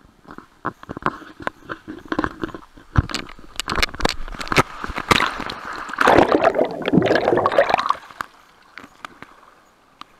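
Water splashing and sloshing close to the microphone, with scattered knocks and clatters; the splashing is loudest for about two seconds starting around six seconds in, then it goes much quieter.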